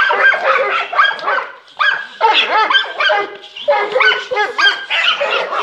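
Dogs barking rapidly and repeatedly, with short yelping calls mixed in and brief lulls about two and three and a half seconds in.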